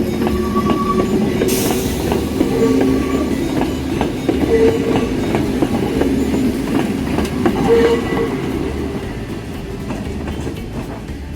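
Hakone Tozan Railway electric train running past, its wheels clicking rhythmically over the rail joints above a low rumble, with a short hiss about a second and a half in. The sound fades away toward the end.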